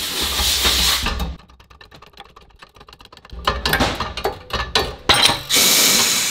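Workshop press pushing the hub out of a worn rear wheel bearing. A steady hiss stops about a second in. Then comes a quieter stretch, then a run of sharp metal clicks and knocks, and a hiss again near the end.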